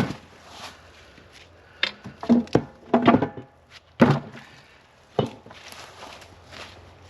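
Footsteps with a string of hard knocks and thuds of wood, the loudest cluster about two to four seconds in and a last knock about five seconds in.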